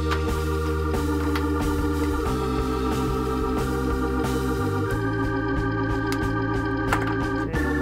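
Background music of sustained organ-like keyboard chords, the chord changing about every two to three seconds.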